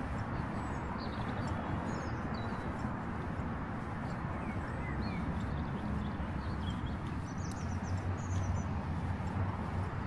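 Steady outdoor background noise with a low hum, and faint, scattered bird chirps above it.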